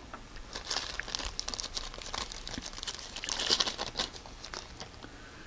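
Crinkling of a silver foil-like wrapper as a lathe tool is worked out of it by hand: a run of light crackles and rustles, loudest about three to four seconds in.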